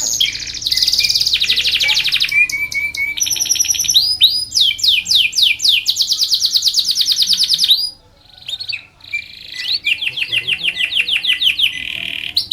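Domestic canary singing a long song of rapid trills and rolls, fast repeated notes changing pitch from run to run, with a short break about eight seconds in.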